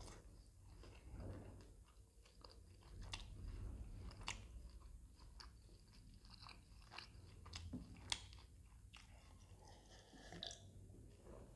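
Quiet close-miked chewing of a mouthful of puri soaked in mutton curry, with many small wet mouth clicks and crunches. Near the end comes a sip from a glass of cola.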